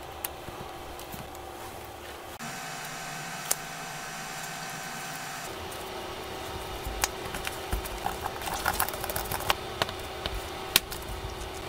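Small, sharp clicks and taps of metal tweezers and phone parts as a smartphone's mainboard and flex cables are fitted into its frame, bunched together in the second half, over a steady background hum that shifts abruptly twice.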